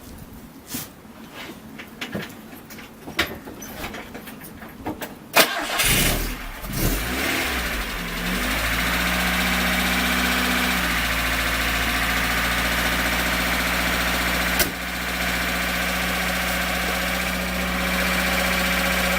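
A few light clicks, then a VAZ (Lada) four-cylinder engine is cranked by the starter a little over five seconds in and catches about two and a half seconds later, settling into a steady idle. The engine has a newly replaced small crankshaft timing gear and is running with its timing-belt cover off: the metallic knock is gone and only a light valve clatter is left.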